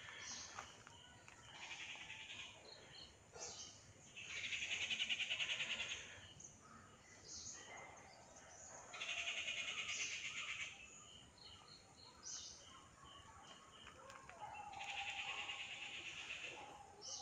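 Outdoor birdsong. A rapid trill about two seconds long comes three times, roughly every five seconds, and series of short high chirps fill the gaps between.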